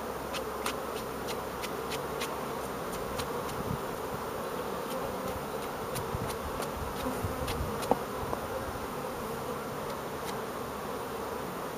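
Carniolan honeybees from an opened hive buzzing steadily all around, with scattered faint ticks and one sharper tick about eight seconds in.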